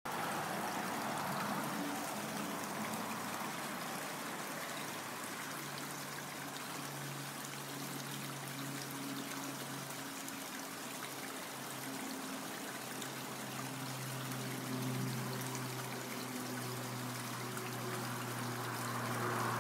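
A small brook running and trickling, a steady rush of water. A faint low hum joins about five seconds in.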